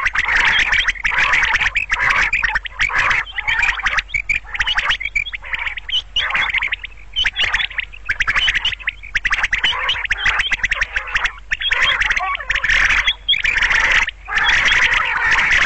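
Quail calling over and over, a loud, dense run of rapid calls with a few brief breaks.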